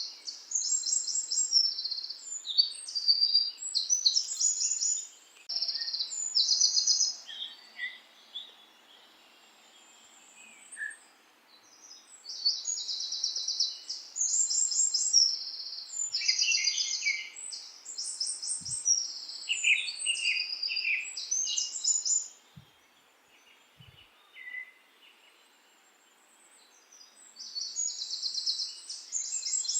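Small birds singing in short, rapid, high-pitched trills and chirps, coming in bouts, with quiet pauses about a third of the way in and again near the end.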